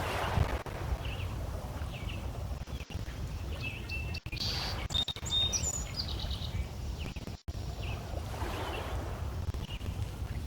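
Small lake waves lapping and splashing against shoreline stones in swelling washes, with birds chirping repeatedly over them and a flurry of higher bird calls near the middle.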